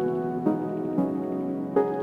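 Soft new-age music on piano-like keyboard, with sustained chords and a new note or chord struck three times.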